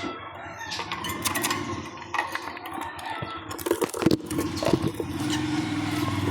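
Lovebird chirps and scratchy clicks, many short sharp sounds in quick succession over a steady low hum that grows louder about four seconds in.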